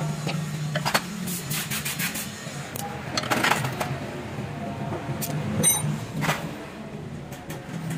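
Metal clinks and taps of a wrench and suspension parts being handled, scattered irregularly over a steady low hum.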